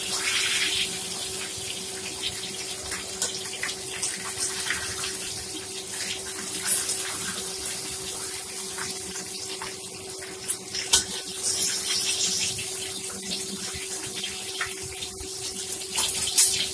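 Whole fish frying in hot oil in a stainless steel pan, a steady sizzle, with a few sharp clicks and scrapes of the metal spatula against the pan as the fish is moved.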